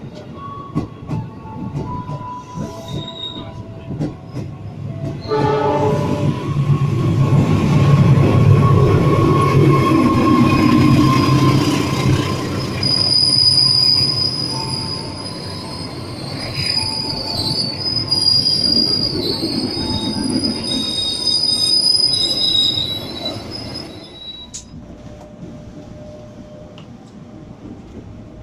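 An electric commuter train, a former JR 205-series set, pulls into a station. The rolling noise grows loud about five seconds in. A high-pitched brake and wheel squeal follows while the train slows, and near the end the sound drops suddenly to a quieter steady background.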